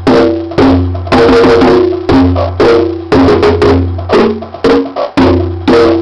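Bongos and djembe struck by hand in a jam over a drum-machine beat, with a steady low hum underneath and a loud hit about every half second. The playing stops right at the end.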